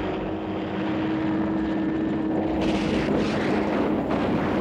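Military helicopters flying low, with steady rotor and engine noise.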